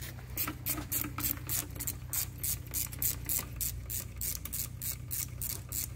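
Worm-drive hose clamp being loosened with a nut driver: a steady run of clicks, about four a second, as the clamp screw turns.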